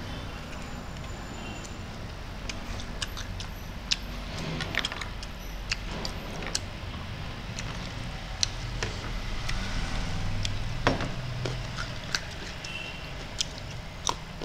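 Scattered light clicks and taps of eating by hand from a plate, as a glass bowl of peeled stink beans is tipped onto it, over a steady low background hum.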